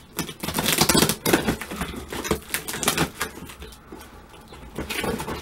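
Scissors cutting through packing tape on a cardboard box: a dense run of crackling, scraping clicks for about three seconds, then quieter, with a short burst of it again near the end.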